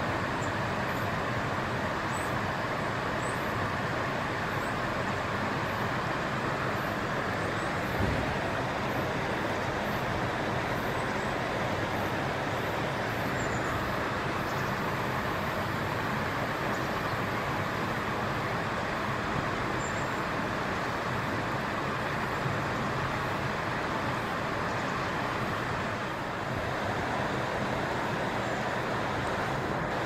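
Steady rushing of a stream's flowing water, with a few faint high chirps now and then and a single soft low knock about eight seconds in.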